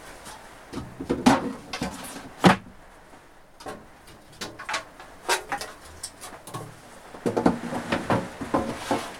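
Two old toolbox drawers being slid into the shelves of a plywood cupboard: a run of scrapes and sharp knocks, the loudest knock about two and a half seconds in and a busy cluster near the end.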